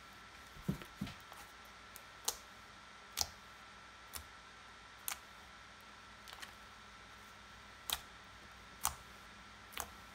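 Homemade fluffy slime made with white glue and shaving cream being squished, folded and pressed down on a stone counter by hand. It gives short sharp pops and clicks as trapped air pockets burst, roughly one a second.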